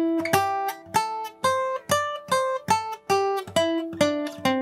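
Steel-string acoustic guitar played one note at a time in a slow lead-guitar scale exercise, about two to three picked notes a second, climbing in pitch and then coming back down.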